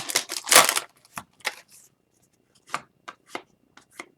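Foil wrapper of a hockey card pack crinkling and tearing as it is worked open by hand: a burst of rustling in the first second, then scattered short crackles and clicks.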